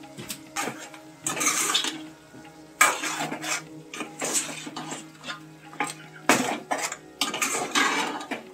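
Steel spoon stirring and scraping chicken pieces coated in chilli powder and salt around a steel pot, in several bursts with clinks of metal on metal.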